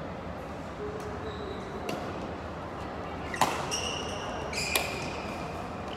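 Badminton rackets striking a shuttlecock in a rally: sharp cracks about a second and a half apart, the loudest about halfway through. Shoes squeak briefly on the court floor between the hits.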